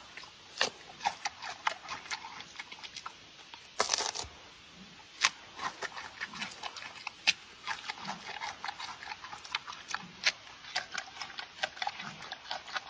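An animal's faint sounds among irregular clicks and taps, with a short burst of rustling noise about four seconds in.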